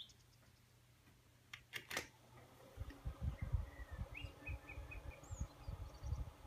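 Mini desk fan switched on: a few sharp clicks, then about two and a half seconds in its small motor starts with a steady low hum, and gusty low rumbling follows. Faint bird chirps are heard in the middle.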